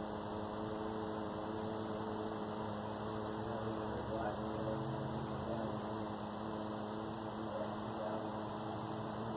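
A steady hum made of several held low tones over a constant hiss, unchanging throughout.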